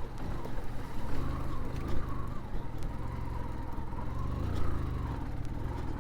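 Motorcycle engine running at low, fairly steady revs while riding, with a few light clicks and knocks.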